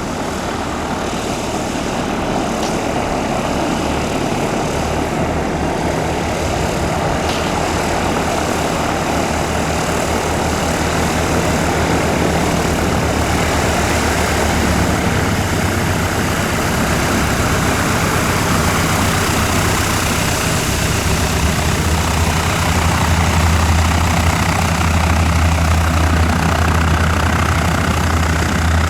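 Light aircraft piston engine and propeller running steadily at low power, with a low drone that grows stronger in the second half.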